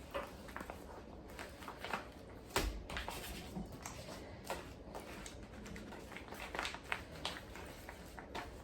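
Kitchen handling sounds while freezer bags of chicken are packed and labelled: scattered light clicks and rustles, with one knock about two and a half seconds in.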